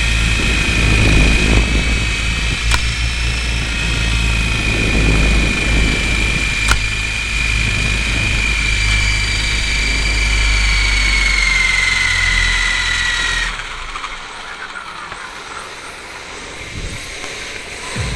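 Radio-controlled helicopter's motor and rotor heard from its onboard camera: a steady high whine over a heavy low rotor rumble, with two sharp clicks. About 12 s in the whine slides down in pitch and cuts off about a second later as the helicopter spools down, leaving a much quieter background.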